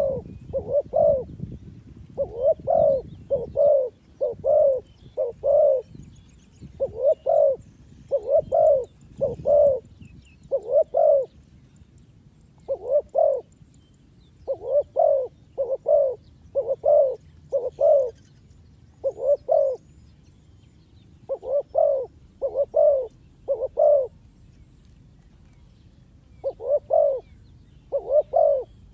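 Spotted dove cooing: a steady series of short, low coos given in runs of two to five notes with brief pauses between the runs.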